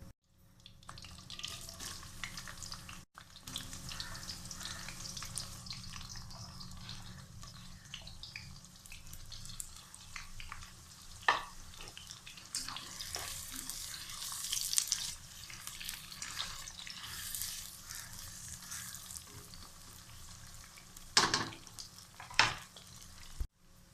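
Food sizzling and crackling in hot oil in a pan while it is stirred, with a few sharp knocks of a utensil against the pan.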